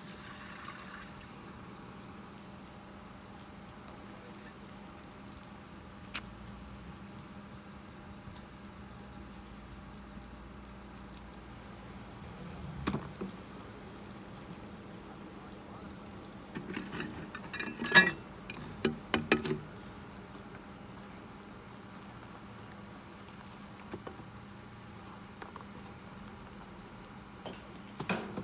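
Waste water trickling and pouring out of an RV sewer hose into a dump station inlet as the hose is raised to drain it. About two-thirds of the way through there is a short run of knocks and clatters from the hose being handled, and a few more knocks near the end.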